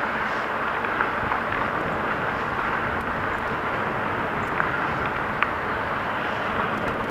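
Steady rushing noise of a bicycle rolling along a paved trail: tyre and wind noise, with a few faint ticks.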